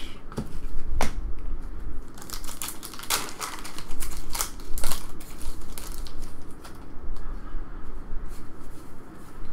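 Trading cards being flicked and shuffled by hand: a run of quick, irregular papery clicks and slaps, thickest between about two and five seconds in.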